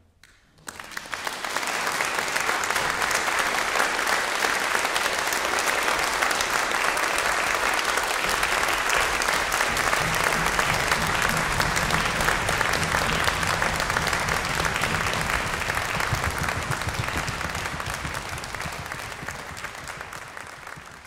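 Concert audience applauding, breaking out abruptly about a second in, dense and steady, then thinning out toward the end.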